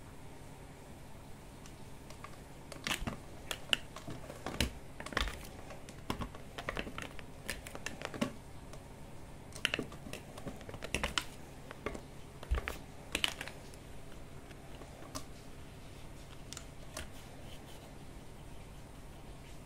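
Irregular light clicks and taps, thickest from about three to thirteen seconds in, then a few scattered ones: a cat swatting at a white strip dangled over a carpeted cat-tree platform, its paws and claws striking the strip and the fabric.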